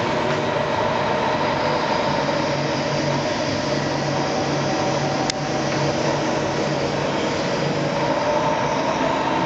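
TOS Celakovice SUA 100 CNC lathe running: a steady mechanical drone with several held whining tones, and a single short click about five seconds in.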